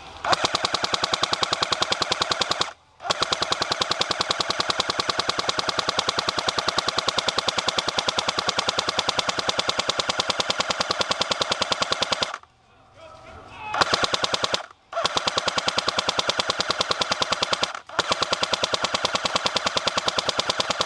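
Airsoft M60 support gun firing long full-auto bursts, a fast even clatter of shots broken by a short pause about three seconds in, a longer pause past the middle, and two brief breaks near the end.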